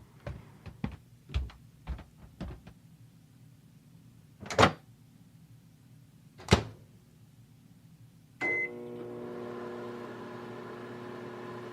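A run of light clicks and knocks, then two louder knocks. A single beep follows, and a microwave oven starts running with a steady hum as it heats frozen lasagna.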